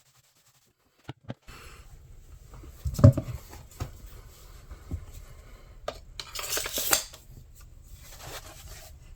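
Metal clinks and knocks from a steel bolo knife being handled, with a longer scrape about six and a half seconds in and another shorter one near the end.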